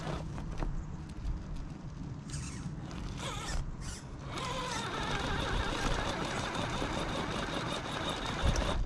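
Electric motor and geared drivetrain of an Axial Early Bronco RC crawler whining as it crawls: short bursts at first, then running steadily from about four seconds in with a steady high whine.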